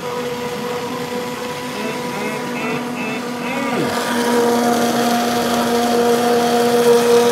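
A steady machine hum with a few fixed pitches, growing louder about four seconds in, with faint speech in the background.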